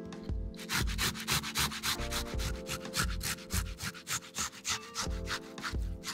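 A tomato being grated on a flat stainless-steel hand grater: a quick, even run of wet rasping strokes. It starts about half a second in and stops shortly before the end.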